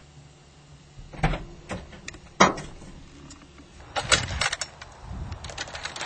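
Metal latch and chain-link cage door clanking and rattling as the door is unlatched and opened: a few sharp knocks, the loudest about two and a half seconds in, then a cluster of rattles around four seconds.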